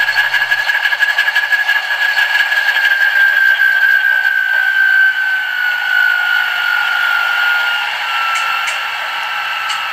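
LokSound Select Direct sound decoder in an HO scale Alco DL109 model playing the locomotive's shutdown sequence through its small speaker: the dual 539 prime movers running down, with a whine that falls slowly in pitch and fades a little in the second half. A few faint clicks come near the end.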